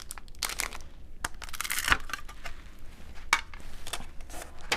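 Handling noise of a small plate and a packaged cookie on a mini digital kitchen scale: irregular crinkling with a string of light clicks and clinks.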